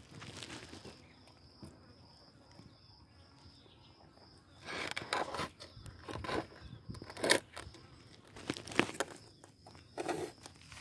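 Tortoises biting and chewing shredded butternut and pumpkin: irregular wet crunches that start about halfway through, with the sharpest bites later on. Before that only a faint high pulsing tone is heard.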